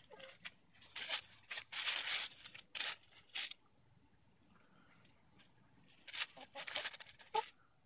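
Easter egger hens scratching and pecking through dry leaves and grass: dry rustling, crackling and tearing in two spells, about a second in and again about six seconds in.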